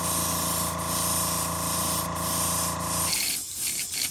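Airbrush spraying paint onto a lure blank: a steady hiss of air with a steady machine hum underneath, both cutting off about three seconds in.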